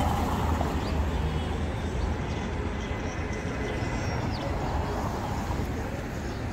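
Midtown street ambience: a steady low traffic rumble with faint, indistinct voices of passers-by.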